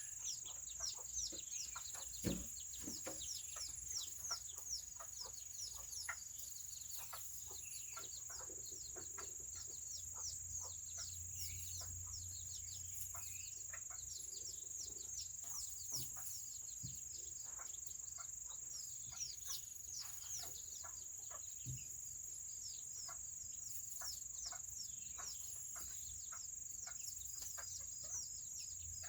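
Serama chickens peeping and clucking: a steady stream of short, high chirps that each fall in pitch, several a second, with a few lower clucks among them. A steady high-pitched whine runs underneath.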